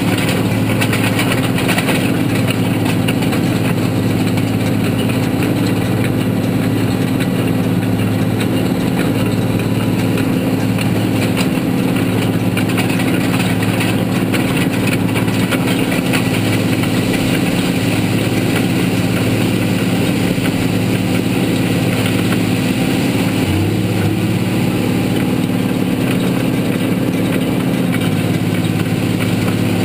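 Tractor engine running at a steady speed while towing a hay wheel rake, heard close up from a camera mounted on the tractor.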